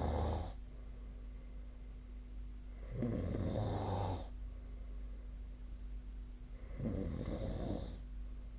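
A sleeping person snoring: one snore trailing off at the start, then two more, each about a second long, roughly four seconds apart.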